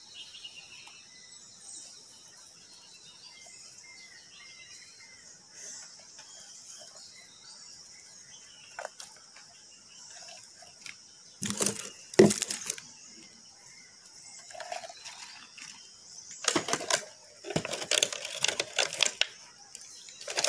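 Hardened cement flowerpot being handled on a stone surface: a sharp knock a little past halfway, then several seconds of rough scraping and crinkling as the plastic lining is pulled out of it, over a steady faint high hiss.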